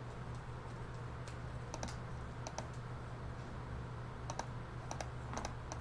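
Computer keyboard typing: scattered, irregular keystroke clicks over a steady low electrical hum.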